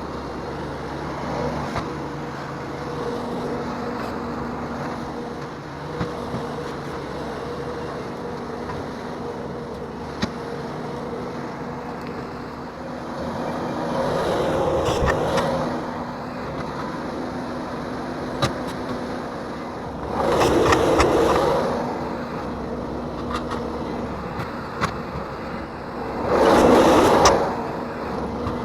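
Bobcat T770 compact track loader running steadily with a forestry mulcher head. Three louder surges of noise, each a second or two long, come about 14, 20 and 26 seconds in.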